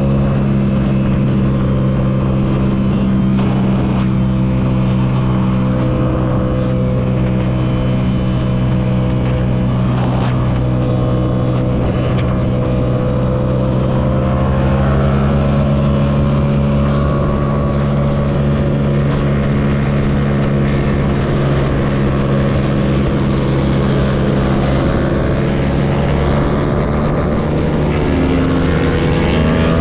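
Yamaha MT-07's 689 cc parallel-twin engine running at a steady pitch while riding, over wind and road rush. The engine note shifts slightly near the end.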